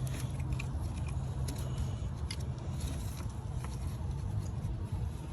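Faint small clicks and scrapes of a bolt and hand tools being worked into a tight spot on an engine, over a steady low rumble that stops near the end.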